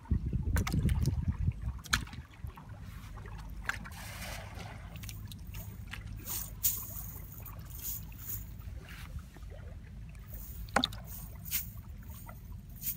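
Wind rumbling on the microphone, loudest in the first two seconds, with scattered sharp wet clicks and squelches from hands and bare feet working through soft mud.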